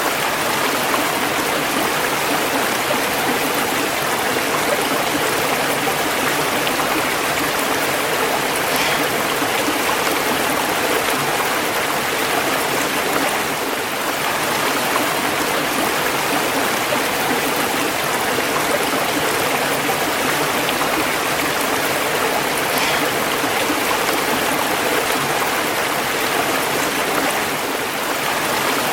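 Running water rushing steadily, an even, unbroken hiss.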